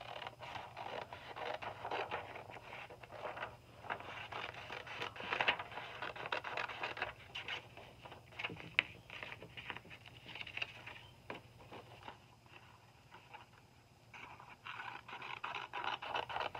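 Scissors snipping through a sheet of paper along its creases, a run of quick crisp cutting strokes with paper rustling, pausing briefly before a last stretch of cutting near the end.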